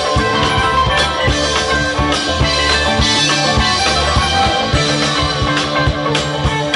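Live rock band playing in a loose, jam-band style, with electric guitars, keyboard and a drum kit keeping a steady beat.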